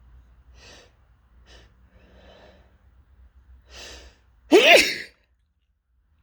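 A person sneezing: a few short catching breaths and a sharper in-breath build up, then one loud, strong sneeze with a voiced "choo" about four and a half seconds in.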